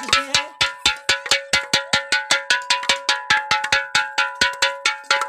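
Metal pots and pans beaten rapidly and evenly, about six strikes a second, each strike leaving a ringing metallic tone. The racket is made to scare a locust swarm off the crops.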